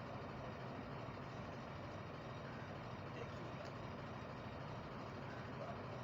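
Steady low rumble of a running engine or heavy machinery, unchanging throughout.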